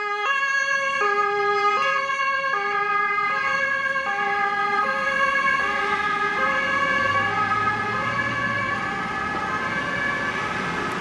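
German fire service two-tone sirens (Martinshorn) alternating high and low about every three-quarters of a second, overlapping so the pattern blurs, the tones shifting slightly lower in pitch after about five seconds as the vehicles pass. A truck engine's rumble joins about seven seconds in.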